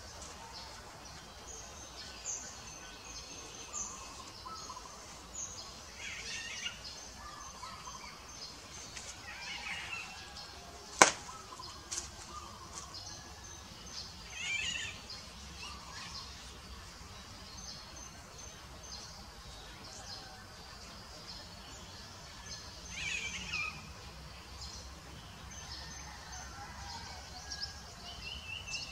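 Small birds chirping repeatedly, with a few louder short calls, over a steady low ambient noise; one sharp click about eleven seconds in.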